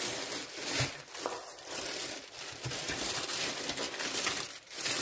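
Plastic packaging crinkling and rustling as a grey plastic mailer bag and silver bubble-padded envelopes are handled and pulled out, in irregular crackly bursts of varying loudness.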